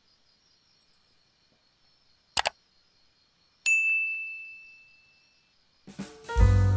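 Subscribe-button sound effect: a quick double mouse click, then a bright bell ding that rings on and fades over about two seconds, over a faint steady chirr of night insects. Background music with piano and drums comes in near the end.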